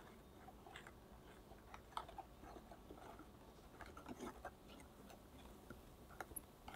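Wire balloon whisk mixing melted chocolate into whipped egg and sugar batter in a glass bowl: faint, irregular light clicks and soft wet sounds as the wires work through the batter and touch the glass.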